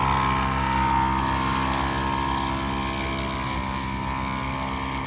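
Portable tyre-inflator air compressor running with a steady hum, pumping air into a punctured car tyre.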